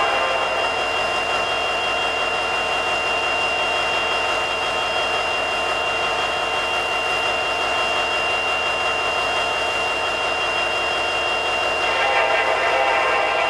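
EMD SD70MAC diesel-electric locomotive idling at a standstill: a steady engine drone with a thin, high whine held over it. About twelve seconds in the sound grows slightly louder and fuller.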